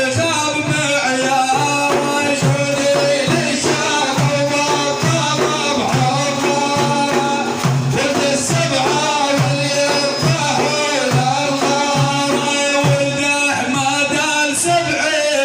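Music with a steady beat: melodic lines over evenly spaced low percussion hits.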